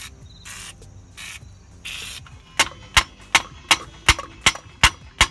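Three short hisses from an aerosol can of penetrating oil, then a small sledge hammer striking the seized rear wheel hub assembly in steady blows, about three a second, to break it free of the rusted knuckle.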